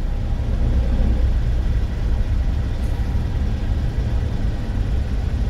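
Steady low rumble inside the cab of a manual Kia truck as it rolls and slows with the clutch pressed: the engine running at idle under road and tyre noise.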